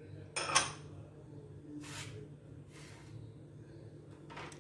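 Two sharp clinks of glass about half a second in, then a few faint scrapes and squelches of a fork working cubed raw chicken in a glass bowl, over a low steady hum.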